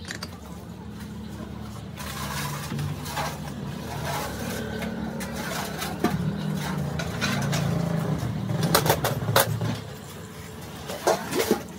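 An engine or motor running for several seconds, with a few sharp knocks near the end.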